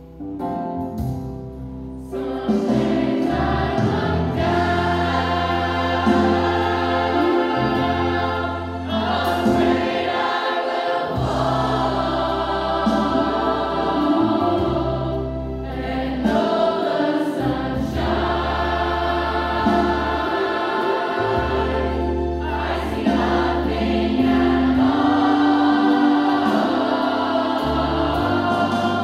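Youth choir singing in parts over an accompaniment with a steady bass line, the sound filling out about two seconds in.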